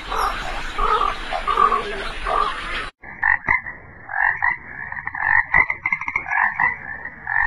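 A frog croaking over and over in quick pulsed calls, starting about three seconds in. Before that comes a few seconds of a dense, rough noise.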